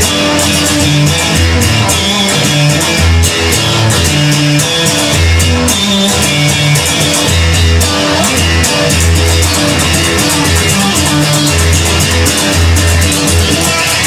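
Instrumental rock music: electric guitar over a bass line and a drum kit keeping a steady beat.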